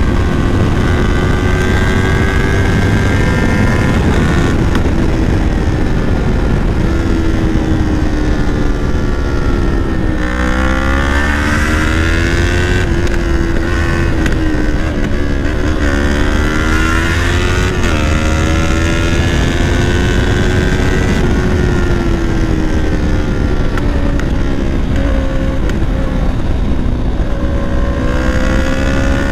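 Yamaha R3's parallel-twin engine through a Leo Vince full-system exhaust while riding, its pitch rising and falling as the throttle opens and closes. There is a sharp dip and climb about ten seconds in and another near sixteen seconds, over a steady low wind rumble.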